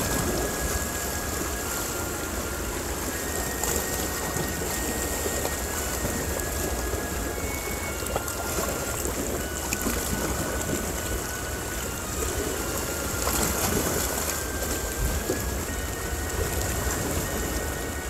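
Sea surf washing against shore rocks, a steady rush, with soft background music playing faintly over it.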